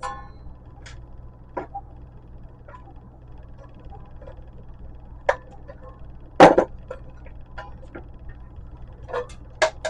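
Metal parts of a light fixture clinking and knocking as it is taken apart by hand, scattered sharp clicks over a steady low hum, with one louder clank about six and a half seconds in.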